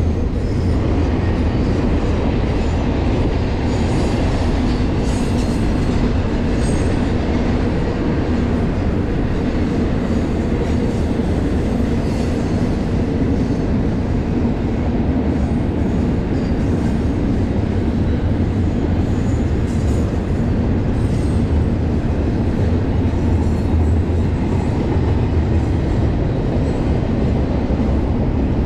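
BNSF intermodal freight train rolling past: a steady loud rumble of steel wheels on rail, with faint high wheel squeals now and then.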